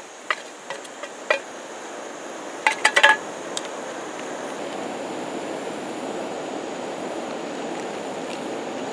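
A wooden spatula taps the rim of a small aluminium camp pan several times, then a quick cluster of metal clinks about three seconds in as the pan is knocked empty. After that a steady rushing noise builds and holds.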